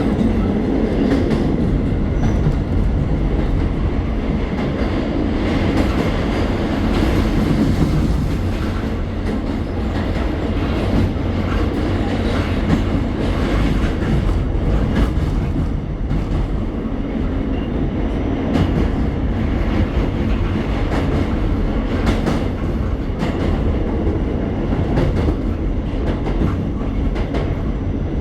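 Passenger train running on the track: a steady loud rumble with wheels clicking over rail joints at irregular intervals.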